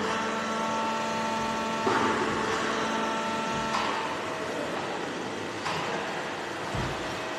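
Slaughter-line machinery for cattle hide removal running with a steady mechanical hum, with motor whines that come in and change about every two seconds. A few short knocks, and a low thump near the end.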